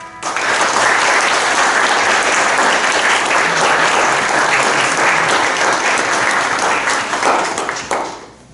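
Congregation applauding just after the music stops, a steady round of clapping that dies away near the end.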